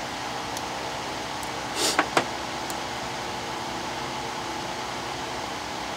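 Two quick, sharp clicks about two seconds in as the Galaxy S4 motherboard is pressed into place in the phone's frame, over a steady fan-like hiss.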